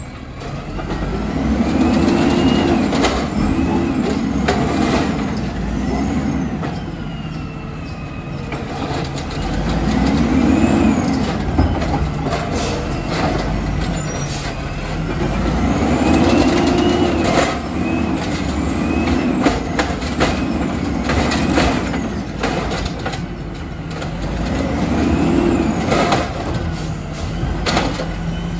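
Peterbilt Amrep side-loader garbage truck's diesel engine revving up and down over and over, with a hydraulic whine rising and falling alongside each rev and scattered metallic clanks.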